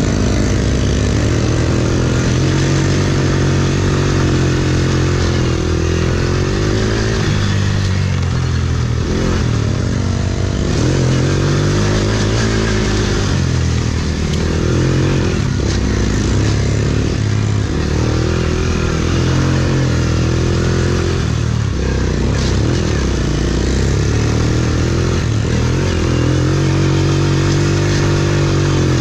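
Small 90cc youth racing quad engine revving hard, its pitch rising and falling again and again as the throttle is opened and eased off.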